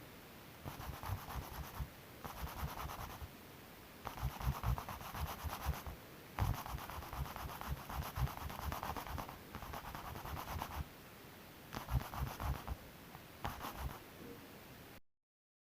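Hand sanding on car bodywork: several runs of quick back-and-forth rubbing strokes with short pauses between them, ending abruptly near the end.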